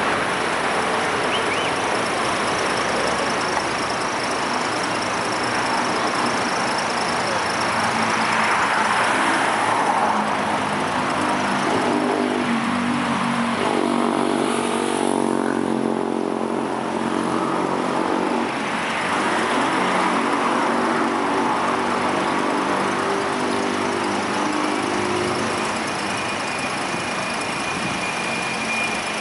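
Street traffic: vehicles passing with two swells of tyre and engine noise, and a vehicle engine running at a steady pitch through the middle stretch.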